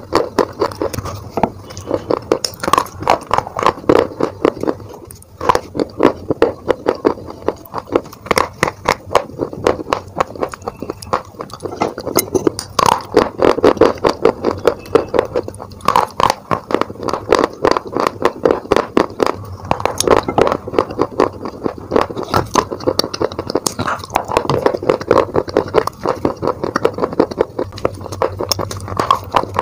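Close-miked biting and chewing of brittle baked-clay pieces: a dense, continuous run of dry crunches and crackles as the pieces break up between the teeth, with a brief pause about five seconds in.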